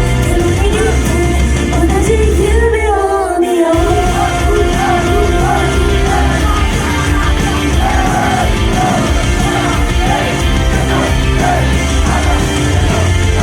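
Idol group's upbeat rock-pop song played loud at a live show, with high singing over a full band backing. The bass and drums drop out for about a second around three seconds in, then come back.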